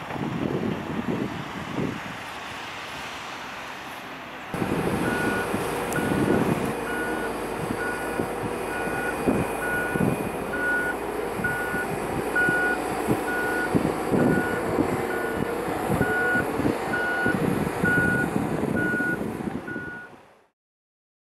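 Reversing alarm on road-construction machinery beeping about three times every two seconds, over diesel engines running; it fades out near the end. Before it, a few seconds of wind and distant machinery noise.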